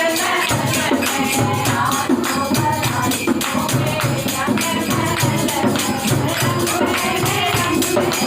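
Kirtan music: group devotional singing over a steady beat of dholak and jingling hand percussion. The drum comes in about half a second in.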